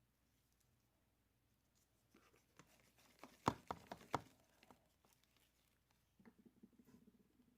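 Faint handling noise: a quick cluster of sharp clicks and crackles about halfway through, then a faint low hum near the end.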